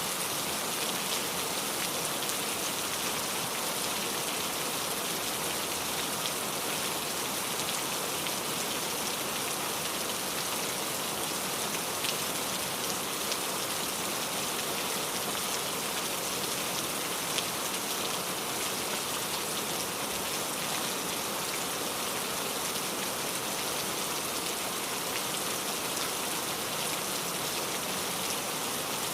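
Steady rain falling: an even hiss weighted toward the high end, with fine scattered drop ticks.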